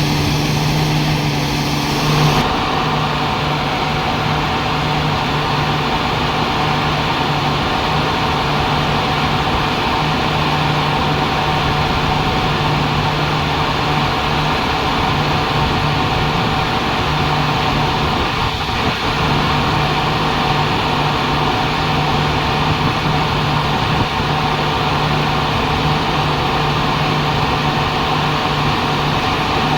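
Greaves CPCB 2 diesel generator engine of a railway EOG power car running steadily, with a low drone that cuts in and out irregularly; this is the faulty sound of the engine.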